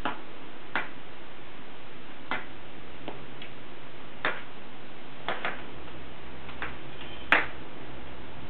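About ten light clicks and taps at uneven intervals as a cat bats at a toy hanging on a door, over a steady hiss. One sharper click comes near the end.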